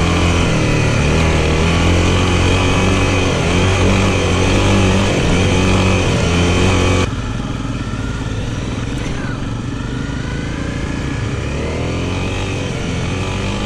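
Off-road dirt bike engine running at a fairly steady throttle while being ridden, heard from on the bike. About seven seconds in the sound changes abruptly and becomes a little quieter.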